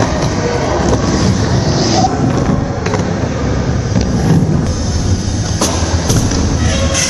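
Inline skate wheels rumbling as they roll across wooden ramps, with two sharp knocks near the end.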